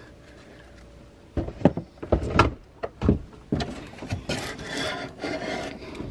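Hollow wooden knocks, then scraping and rubbing, as a hand rummages through things inside an old wooden commode cabinet. It is quiet for about a second, then come several sharp knocks, then steadier scraping.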